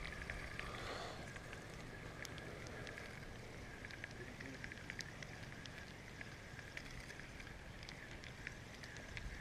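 Faint open-water ambience from a kayak: a steady high-pitched hum with small, scattered ticks and drips and a low rumble underneath.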